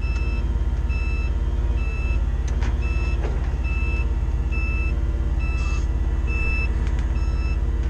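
Forklift backup alarm beeping steadily, about one and a half beeps a second, over the forklift's engine running: the forklift is reversing with its load.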